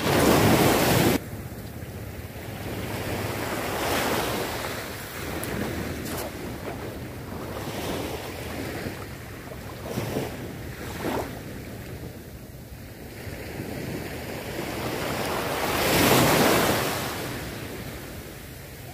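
Small sea waves washing up and breaking on a sandy shore, with wind rumbling on the microphone. A loud rush fills the first second and stops suddenly, and the biggest wave swells up and washes in near the end.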